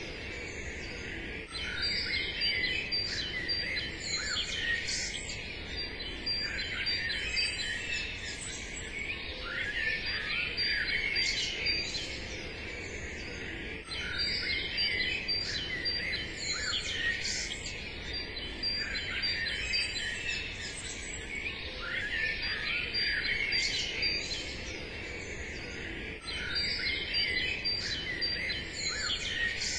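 Birdsong ambience: many small birds chirping and twittering together over a low steady hiss, with the same stretch of sound repeating about every twelve seconds.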